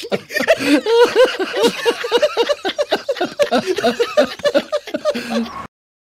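Several men laughing together, overlapping bursts of hearty laughter that cut off suddenly near the end.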